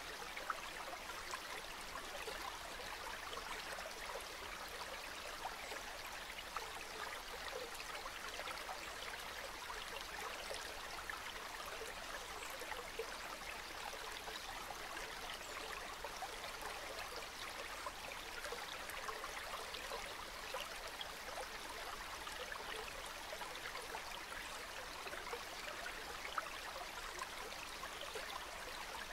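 Calm river water flowing steadily: a continuous gentle babble sprinkled with small quick splashes and trickles.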